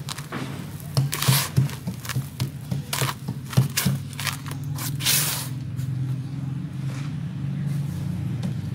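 Gloved hands grabbing and crumbling handfuls of dry brown dirt: grains crunch and pour back down in several rustling bursts, the loudest about five seconds in, over a steady low hum.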